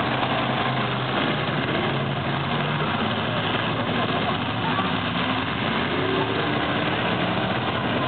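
Several demolition derby cars' engines running and revving together, a continuous loud din with pitch rising and falling as drivers rev, most noticeably a few seconds past the middle.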